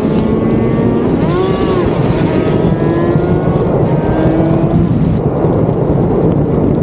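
Suzuki RG500's square-four two-stroke engine pulling under acceleration on the road, its pitch climbing steadily with a brief dip and recovery about a second and a half in. Heavy wind rushes over the microphone.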